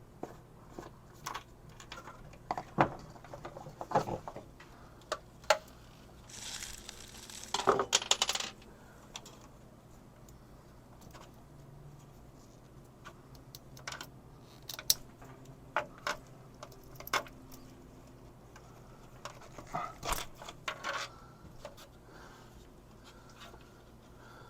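Scattered metallic clinks, taps and knocks of hand tools and loose hardware being handled, with a longer scraping rustle about seven to eight seconds in.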